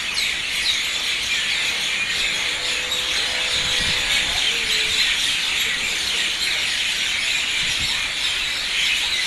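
A large flock of birds calling all at once: a dense, steady wall of high chirping and squealing with no single call standing out.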